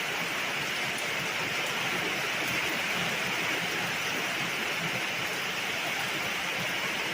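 Heavy rain drumming steadily on a roof, loud enough to drown out speech.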